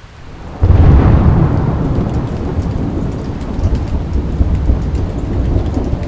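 A sudden clap of thunder a little over half a second in, its deep rumble slowly easing off over steady rain.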